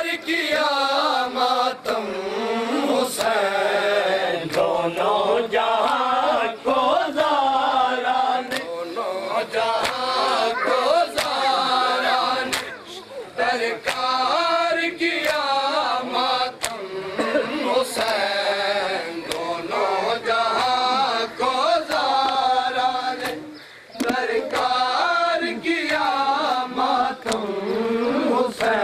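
Men chanting a Shia nauha (Muharram lament) in a wavering, sung recitation. It is punctuated by sharp hand slaps of matam, mourners beating their bare chests.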